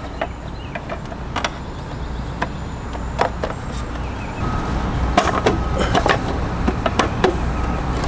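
Black plastic frame cover of an e-bike being handled and pressed back into place: scattered clicks and knocks of hard plastic, coming more often about halfway through, over a steady low hum.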